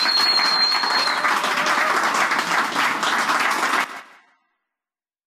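Small audience applauding, with one high whistle over the first second. The applause cuts off suddenly about four seconds in.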